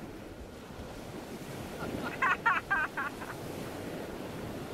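River rapids rushing steadily. Just after two seconds in, a quick run of five or so short high calls stands out above the water for about a second.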